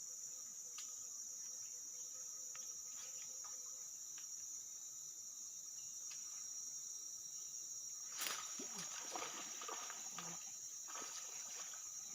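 Steady high-pitched drone of forest insects such as crickets or cicadas, with a few faint clicks. About eight seconds in, a louder stretch of rustling noise lasts for around three seconds.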